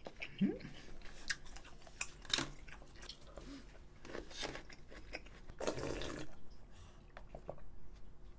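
A man chewing a spoonful of spicy gukbap (Korean pork soup with rice) close to the microphone: scattered small wet mouth clicks, with a louder stretch about six seconds in.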